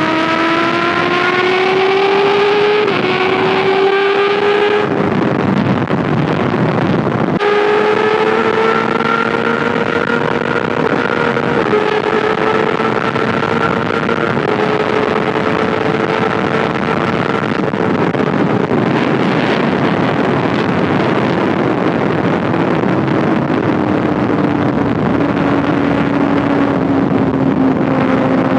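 Kawasaki ZX6R 636cc inline-four engine under way at speed: revs climb for the first five seconds with a brief dip about three seconds in, the engine note drops away for a couple of seconds, then returns to a steady high cruise and slowly winds down over the last ten seconds. Heavy wind rush on the body-worn mic throughout.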